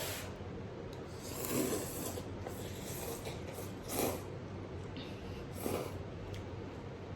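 Instant noodles being slurped and chewed up close, with three short louder slurps, about a second and a half in, at four seconds and near six seconds.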